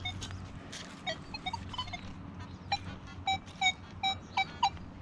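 Nokta Legend metal detector with a 6-inch coil giving short beeps as the coil is swept over the ground: fainter higher chirps in the first half, then about six quick mid-pitched beeps in the second half.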